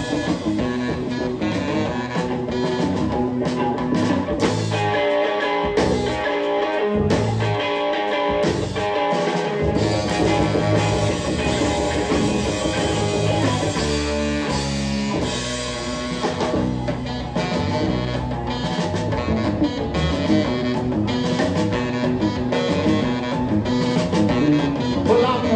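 Live rockabilly band playing an instrumental break without vocals, an electric guitar taking the lead over bass and drums.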